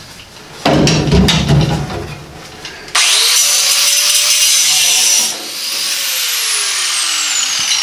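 Metal rattling and scraping, then an angle grinder spins up with a high whine about three seconds in, runs for a couple of seconds, and winds down with a falling whine as it is released.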